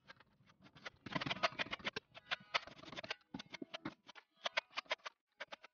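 Metal scraper blade scraping across drywall in quick, short strokes: a dense run of scrapes about a second in, then single strokes spaced apart.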